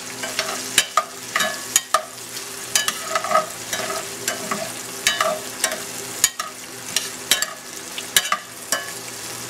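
A large metal spoon scraping and clinking against a stainless steel pan as crumbled Italian sausage is stirred, with sharp clinks about once or twice a second. Underneath, the sausage sizzles steadily as it fries in its own grease and oil.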